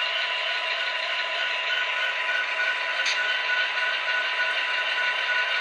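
Model Union Pacific SD70ACe and SD60M locomotives' Tsunami sound decoders playing a diesel locomotive engine sound through small onboard speakers. The sound runs steadily, thin and without deep bass, with a brief high chirp about three seconds in.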